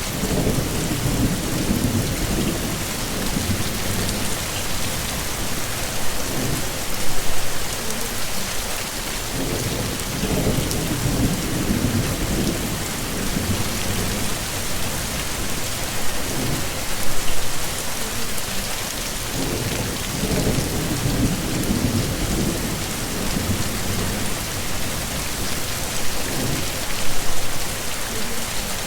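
Steady heavy rain pouring, with low rolling rumbles of thunder that swell and fade every few seconds; the loudest swells come about ten seconds apart.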